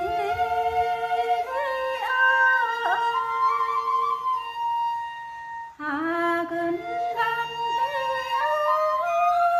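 A woman singing a Tày-Nùng sli folk song, holding long notes that slide and waver between pitches. There are two phrases, with a short breath about six seconds in.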